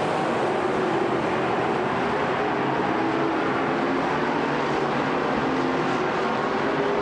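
A field of dirt-track pro stock cars racing, many engines running together at speed in a steady, dense din with a few faint wavering engine tones.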